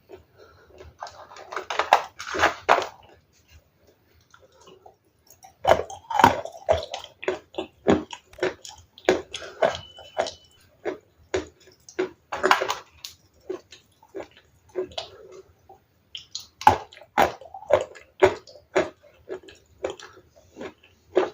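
Ice being bitten and chewed: runs of sharp, wet crunches in three bouts, with pauses of about two seconds between them.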